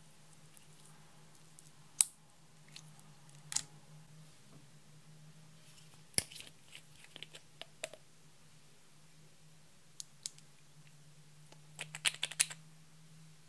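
Scattered small clicks and taps of glass nail-polish bottles, brush handles and caps handled against a glass bowl, with a quick run of clicks near the end as a polish bottle is worked open; a low steady hum runs underneath.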